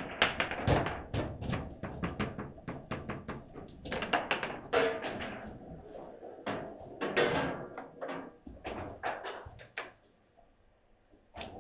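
Foosball table: irregular sharp knocks and thunks of the ball and the hard plastic figures and rods striking, with a lull near the end.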